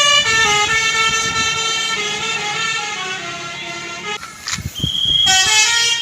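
Bus 'telolet' multi-trumpet air horn (Basuri type) playing a stepping, multi-note tune. The tune breaks off about four seconds in, and a new run of notes starts near the end.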